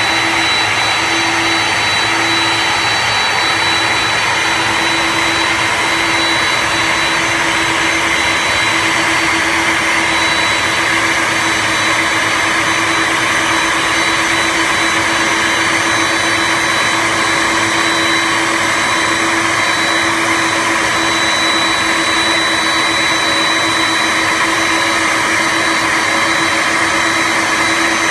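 Steady jet-turbine whine and rush around a parked Boeing 747-400: a rushing hiss with a thin high whistle and a low hum, unchanging throughout.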